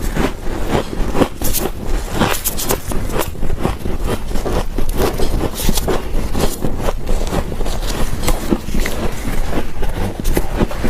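Dry freezer frost being bitten and chewed up close, a continuous run of rapid, irregular squeaky crunches.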